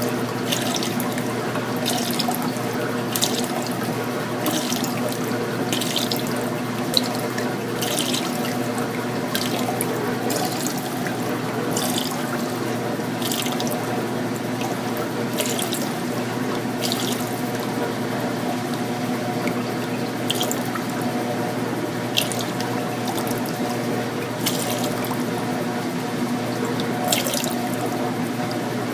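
Water gushing steadily from a washing machine's drain hose into a laundry sink and running down the drain, with a steady hum and irregular splashing. The unclogged drain keeps up, so the water level stays below the hose.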